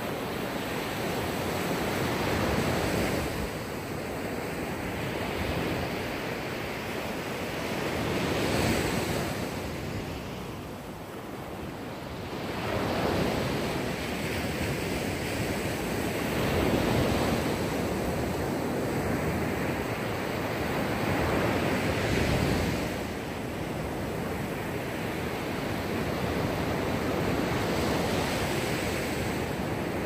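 Mediterranean Sea waves breaking and washing ashore, the surf swelling and ebbing every few seconds.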